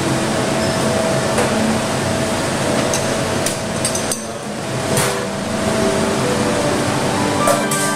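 A steady rushing background hum at a coffee stall, with a few sharp metal clinks from about the middle on as a spoon stirs in a small steel cup and the steel pots are handled.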